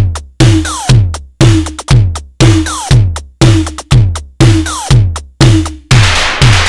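Simmons SDS7 analog/digital drum synthesizer playing a steady pattern of electronic drum hits, about two a second, with a short reverb. Each hit has a low thump and a noisy top, and some carry a falling pitched sweep. The last hit, near the end, is a longer, noisier crash that rings out.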